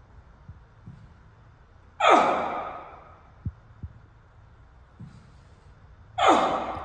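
A man's forceful exhales, two sudden loud huffs each trailing off over about a second, driven out with the explosive push-off from a lateral dumbbell lunge. Two faint taps come between them.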